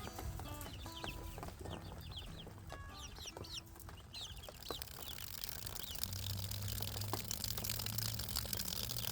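Young chickens peeping, many short high chirps in quick succession, thinning out after about four seconds. A steady hiss grows louder through the second half.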